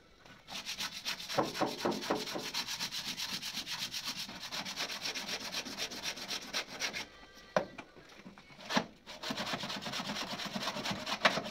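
Body filler (putty) on a Hindustan Ambassador Mark 4's front wing being hand-sanded with a sanding block, in quick back-and-forth strokes. The strokes pause briefly about seven seconds in, with two sharp taps, then carry on.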